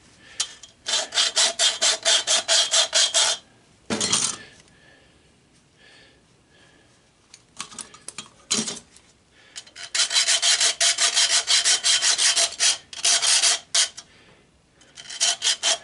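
Hacksaw cutting through copper tubing in quick back-and-forth strokes, in three runs with pauses between as the tube is turned: a run early on, a long run from about ten seconds, and a short one at the end. A single knock falls between the runs, at about four seconds and again at about eight and a half.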